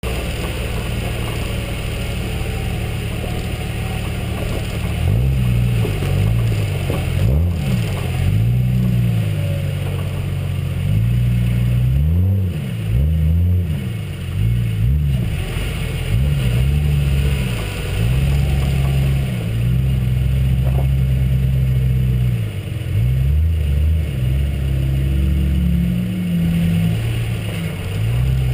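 4x4 truck engine under the hood, close up, running at a steady low drone, then revving up and down repeatedly from about five seconds in as it works along a rough dirt trail.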